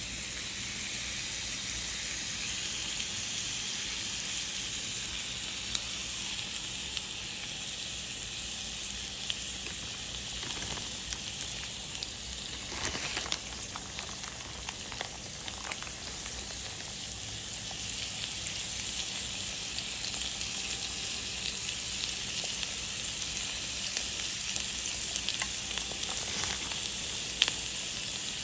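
Egg and ground-beef patty sizzling steadily on the hot plate of a mini waffle maker, with scattered small pops.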